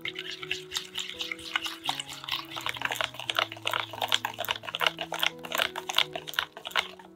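Wire whisk beating eggs into melted chocolate brownie batter in a glass bowl: quick, rapid scraping and clicking strokes against the bowl, with soft background music underneath.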